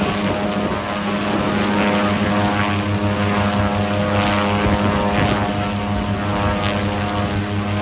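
Small twin-engine turboprop plane's propellers and engines running steadily, a loud, even propeller drone.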